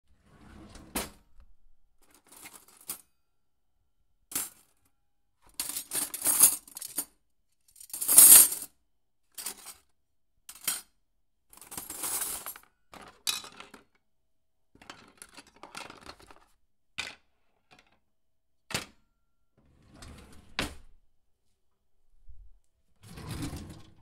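Metal spoons, forks and knives clinking and rattling together as they are handled: a series of short, separate clatters with brief pauses between. The loudest clatter comes about eight seconds in.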